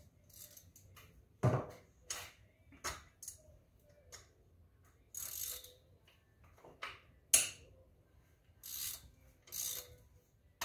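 Hand ratchet wrench clicking in short runs, with scattered sharp metal clinks, as the cylinder head bolts of an ATV engine are worked loose.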